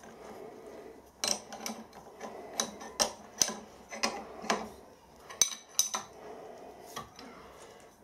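Adjustable spanner tightening the hold-down clamp nuts on a milling machine table: irregular sharp metallic clinks as the steel spanner is fitted on and pulled round the nuts.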